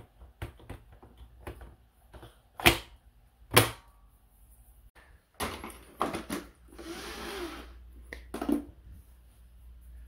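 Handling noise from moving the robot vacuum about: a series of separate sharp knocks and clatters, the loudest two a second apart about three seconds in, with a brief scraping rustle about seven seconds in.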